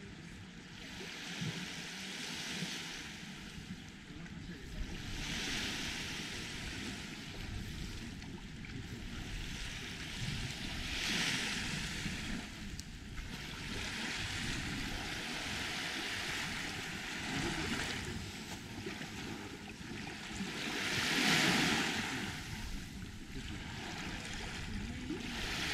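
Small sea waves washing up on a sandy, pebbly shore. The hiss swells and fades every few seconds and is loudest about twenty seconds in.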